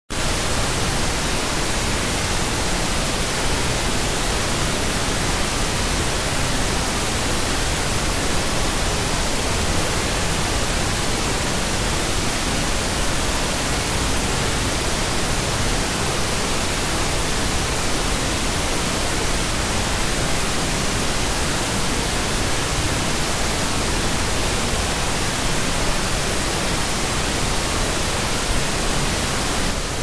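Generated white noise: a steady, even hiss spread evenly across all pitches.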